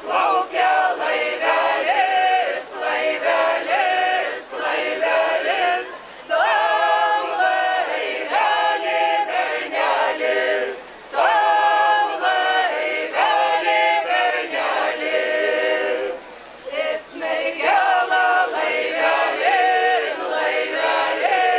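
Lithuanian folk ensemble singing an unaccompanied folk song together, phrase after phrase with short pauses between them.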